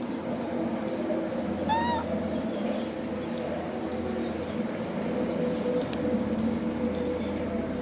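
A steady low hum with a single short, high animal call about two seconds in that rises and then falls, and a few faint clicks.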